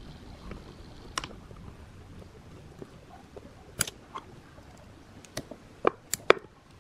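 Scattered sharp clicks and light knocks of a speaker driver and its wires being handled and set down in a pine box. They come singly at first, then as a quick run of louder clicks near the end.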